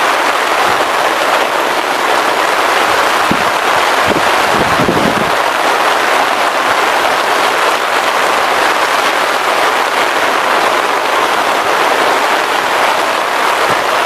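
Heavy rain pouring down steadily in a dense, even hiss, with a few brief low buffets of wind on the microphone about four seconds in.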